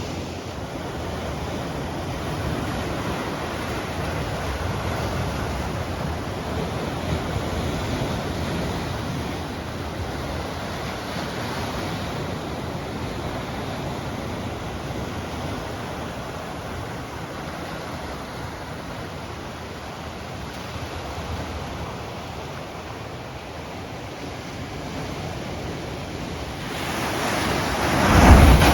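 Ocean surf washing in steadily, with wind buffeting the microphone; a bigger wave breaks near the end.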